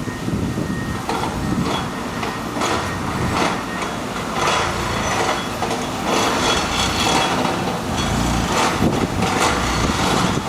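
CAT 315 GC excavator working its plate compactor attachment: a deep engine rumble under a string of irregular knocks and rattles, one or two a second, as the plate pounds the ground.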